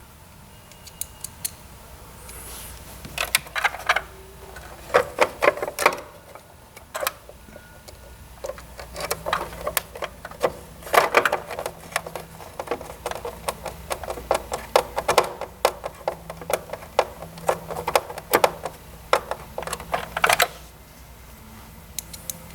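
Phillips screwdriver driving screws to fasten a circuit board to its plastic tray: several bursts of rapid small clicks with short pauses between them.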